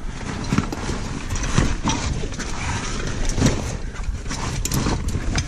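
Footsteps, scrapes and brush rustling of someone scrambling up a steep, brushy rocky slope, with irregular knocks every second or so.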